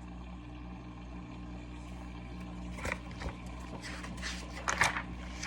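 A steady low electrical hum, with a few short paper rustles and clicks about three to five seconds in as picture-book pages are turned.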